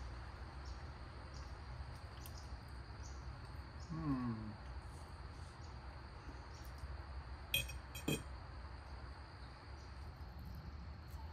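Two quick clinks of a metal fork against a ceramic plate near eight seconds in, over steady outdoor background noise with faint insects chirping in a regular rhythm. About four seconds in, a brief falling vocal hum from the man as he tastes.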